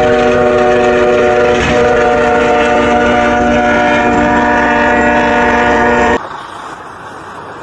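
Diesel locomotive's air horn sounding a long, steady multi-note chord over the rumble of the passing train, cutting off suddenly about six seconds in. A much quieter truck rumble follows.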